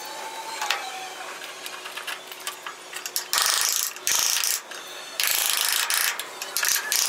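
Scraping tool work on the hammer: scattered light clicks and knocks, then two harsh scraping bursts, the first about a second long and the second about two seconds long.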